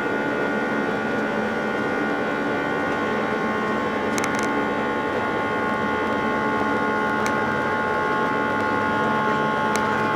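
Airbus A320 cabin noise: the steady rush of the jet engines and airflow, with several steady hum tones running through it. A few faint clicks come about four seconds in and again later.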